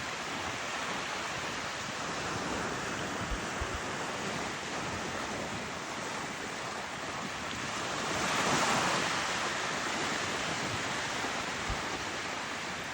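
Surf and wind: a steady rushing noise that swells about eight seconds in, with low buffets of wind on the microphone.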